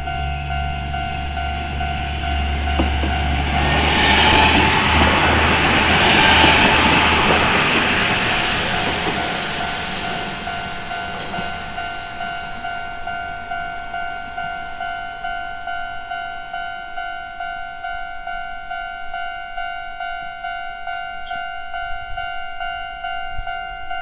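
Japanese level-crossing alarm ringing steadily in a repeating electronic ding. A few seconds in, a train passes through the crossing, with rushing wheel noise and a high squeal; it is loudest soon after it arrives and fades away around halfway through.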